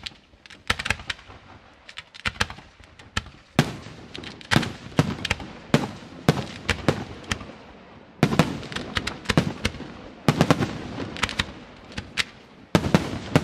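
Aerial firework shells bursting in quick volleys of sharp bangs. The volleys come in several waves, with short lulls between them.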